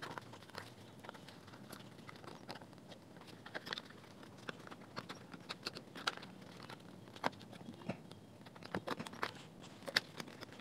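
Faint, irregular small clicks and scrapes as the circuit board of a JBL Go 2 Bluetooth speaker is handled and pressed back into its casing.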